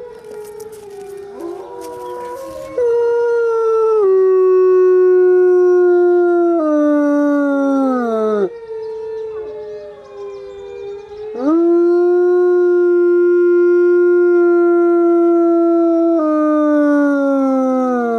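Gray wolf howling close by in a low-throated tone, answering another wolf's howl. There are two long howls, each holding a steady pitch and sliding down at the end, the second dropping a step partway through. Fainter howls from other wolves overlap at the start and in the gap between.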